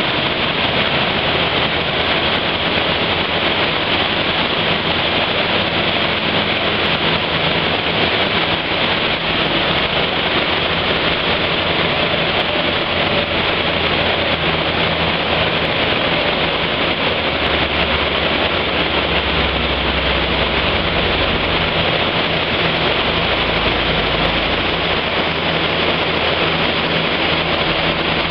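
Car engine fitted with a cone air filter running at a steady speed on a chassis dynamometer, a loud, even rushing noise with no revving up or down. A deeper rumble swells for a few seconds about two-thirds of the way through.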